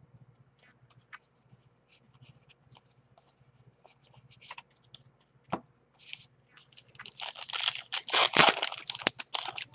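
Trading cards handled with small clicks and taps, then about six and a half seconds in a few seconds of loud crinkling and tearing as a foil card-pack wrapper is ripped open.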